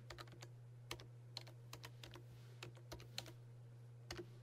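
Computer keyboard being typed on: faint, irregular key clicks, a few to the second, over a steady low hum.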